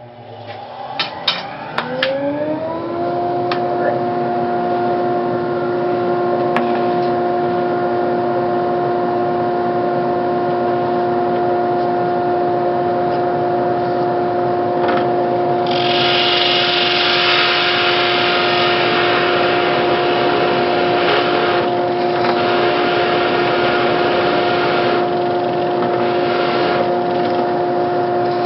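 Dust collector switched on with a few clicks, its motor spinning up over about two seconds to a steady whine. About halfway through a louder hissing rush joins in for several seconds, the drill press boring a hinge cup hole in MDF while the dust is sucked away.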